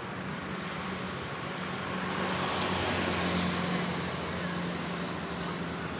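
Street traffic: a vehicle passes by, its hiss swelling about two seconds in and fading again, over a steady low engine hum.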